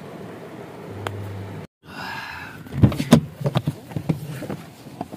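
Steady hiss of rain on a car, then, after a short break, a cluster of sharp knocks and rustles from a phone being handled close to its microphone.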